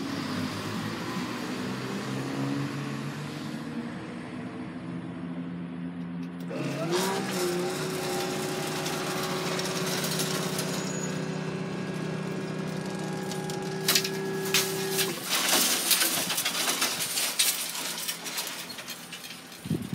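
Class 171 Turbostar diesel unit running away from the crossing, its engine note fading. About six seconds in, a steady motor hum starts as the level crossing barriers rise and runs for about eight seconds, followed by a few seconds of clattering knocks.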